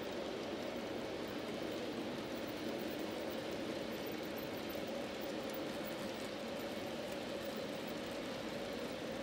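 G scale model freight cars rolling past on garden railway track: a steady, even rolling noise of many wheels on the rails, with a faint steady hum.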